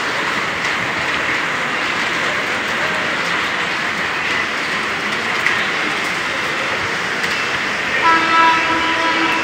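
Steady rushing noise of heavy rain over the railway station. Near the end a train horn sounds one held, steady note for about a second and a half.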